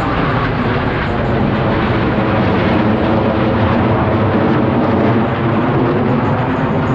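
Loud, steady jet engine noise from F/A-18 Super Hornet fighter jets in flight.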